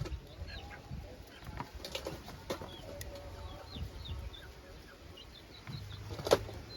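Small birds chirping in short high calls again and again, over scattered clicks and knocks, with one sharp knock near the end.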